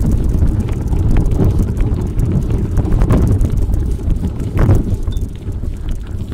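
Wind buffeting the microphone over the rattle and knocks of a bicycle riding over rough off-road ground, with a few harder jolts.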